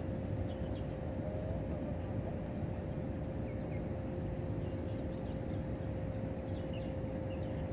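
Steady low outdoor rumble under a constant thin hum, with a few faint short chirps.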